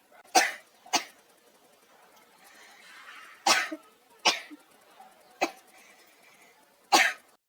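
A person coughing hard, about six sharp coughs spaced over several seconds, some in quick pairs, brought on by the burn of eating dried red chillies.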